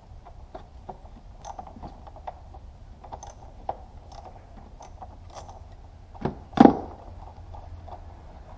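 Hands unclipping connectors and hoses on an engine's intake side: scattered small clicks and ticks, with two louder knocks close together about six and a half seconds in.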